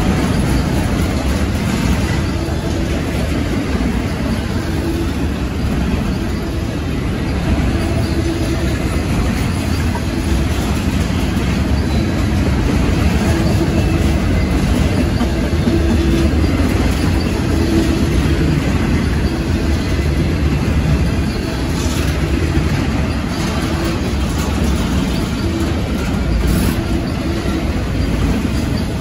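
Cars of a long Norfolk Southern intermodal freight train rolling slowly past: a steady rumble of steel wheels on the rails.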